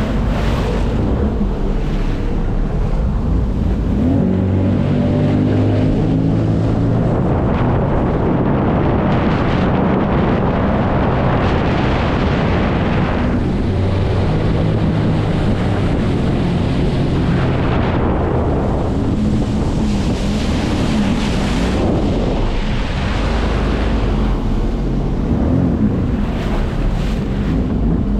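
Jet ski engine running on the water, its pitch rising and falling several times with the throttle, under heavy wind noise on the microphone and rushing water.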